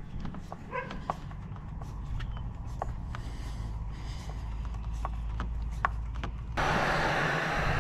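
Light clicks and a brief squeak from a hand screwdriver driving screws into a PVC splash rail, over a low rumble. About six and a half seconds in, a heat gun's blower starts with a steady rushing hiss.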